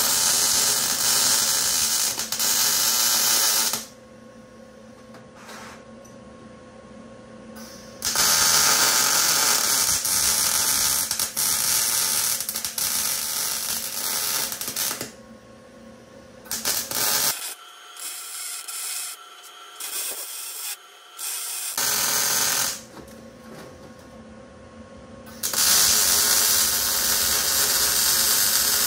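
MIG welding arc crackling and buzzing in several bursts of a few seconds each, with short pauses between beads: about four stretches of welding, the longest about seven seconds.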